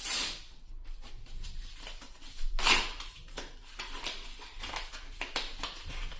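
Yu-Gi-Oh trading cards being handled and flipped through by hand: a string of soft card rustles and slides, with a louder swish about two and a half seconds in.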